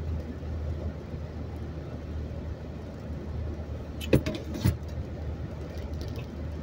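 Steady low drone of a car driving, heard from inside the cabin, with the hiss of tyres on a wet road. Two sharp knocks come about four seconds in, roughly half a second apart.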